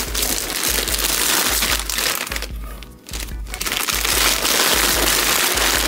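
Crinkly foil-lined chip bags being grabbed, crumpled and shuffled in a box, a dense crackling with a short lull around the middle. Background music with a steady bass beat plays underneath.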